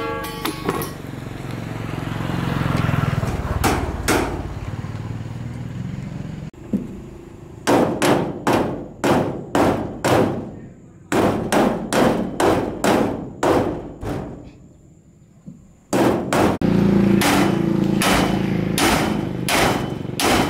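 Hammer blows on the steel cargo rack of a mini truck: a run of sharp metallic strikes about two a second, each ringing briefly, starting about a third of the way in, a short pause, then more strikes near the end.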